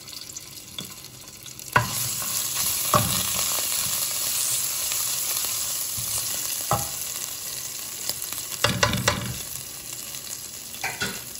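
Ground ginger sizzling in hot oil in an aluminium pot while a wooden spoon stirs it, knocking against the pot a few times. The sizzle starts suddenly about two seconds in and eases off toward the end.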